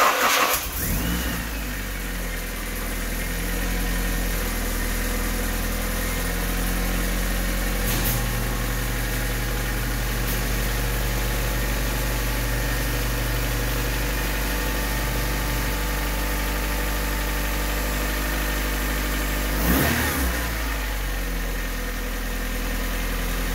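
Honda D16Y8 four-cylinder engine firing up at once, loudest in the first moment, then idling steadily on a freshly fitted coil-on-plug ignition kit with all four cylinders firing. Its note shifts briefly about twenty seconds in.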